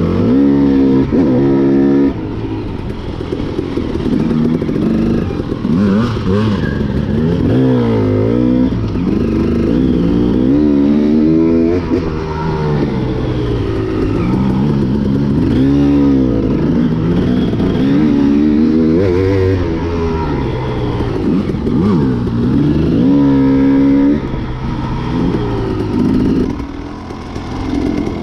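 Dirt bike engine under riding load, revving up and down over and over as the throttle is opened and closed, its pitch climbing and dropping every few seconds.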